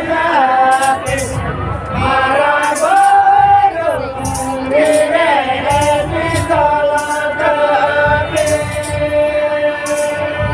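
Group of men singing a Santali traditional dance song together, long wavering sung lines over beating barrel drums and kettle drums, with sharp high strikes recurring through it.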